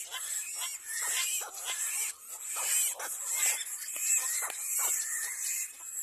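Little black cormorant chicks begging for food from a feeding adult: a rapid, overlapping string of short, shrill calls, several a second, each dropping in pitch.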